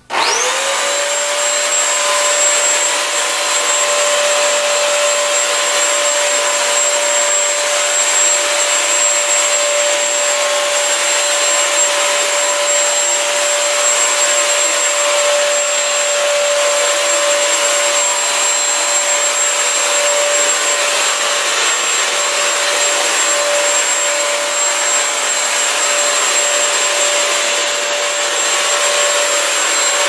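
A Bissell CrossWave wet-dry multi-surface vacuum switches on and spins up to speed at the start, then runs with a steady whine as it is pushed over carpet. It is being used dry, with no cleaning solution dispensed.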